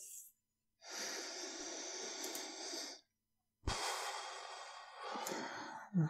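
A man breathing slowly and deeply: two long breaths of about two seconds each, with a short silent gap between them. A soft low thump marks the start of the second breath.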